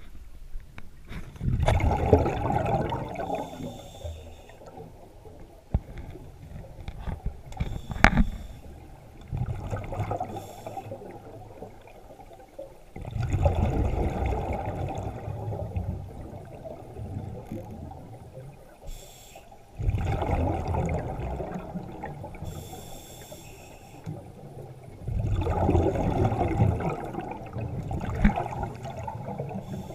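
Scuba diver breathing through an open-circuit regulator, heard underwater through a camera housing: a bubbling rumble of exhaled air about every six seconds, lasting two to three seconds each time, with fainter hissing between breaths as air is drawn in.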